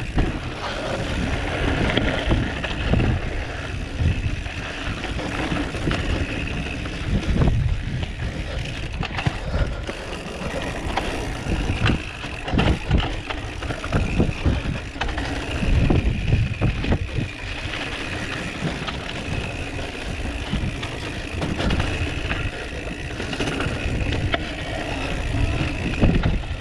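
Mountain bike riding fast over a rough dirt trail, heard from a camera on the rider: tyres crunching on loose ground with irregular bumps and rattles, and rumbling buffets on the microphone.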